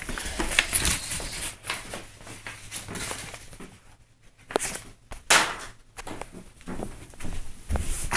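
Scattered light knocks, taps and rustles of handling, with a quieter stretch about four seconds in.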